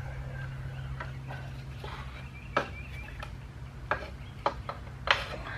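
Scattered metallic clinks and knocks of hand tools and engine parts as a lawnmower's carburetor is unbolted, about half a dozen at irregular intervals. A steady low hum runs underneath.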